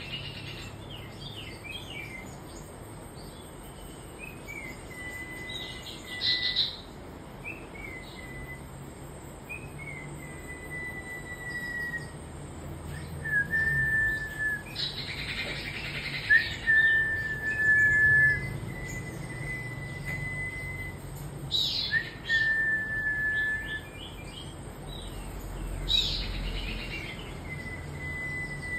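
A caged huýt cô songbird singing: long, level whistled notes held for a second or two, repeated many times, mixed with quick runs of short chirps and a few louder, harsher bursts.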